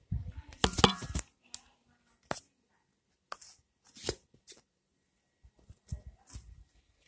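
Handling noise: a burst of rustling and clicks in the first second, then scattered short clicks and scrapes.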